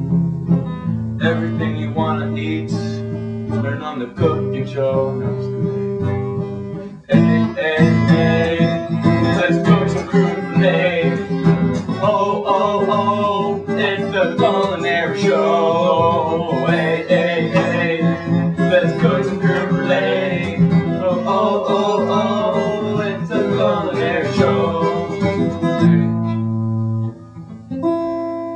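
Guitar music with acoustic guitar, becoming fuller about seven seconds in and fading out near the end.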